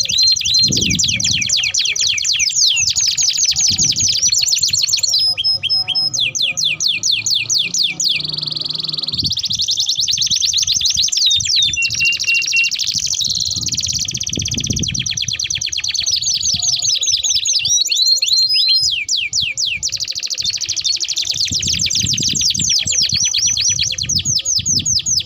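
Domestic canaries singing long rolling song: rapid repeated trills that change to a new phrase every second or so, broken by a few brief pauses.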